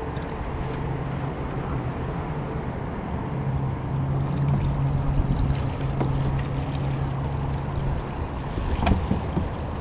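Electric trolling motor on a kayak running with a steady low hum over water noise, the hum stopping shortly before the end.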